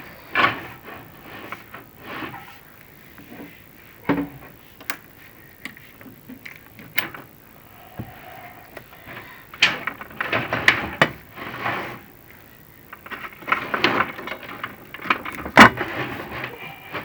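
Chimney inspection camera scraping and knocking against the bare brick walls of a flue as it is lowered, in irregular scrapes and sharp clunks, busiest near the end.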